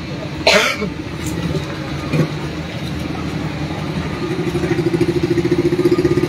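A motor vehicle engine running close by: a steady pulsing hum that grows louder about four seconds in. A brief sharp rustle about half a second in.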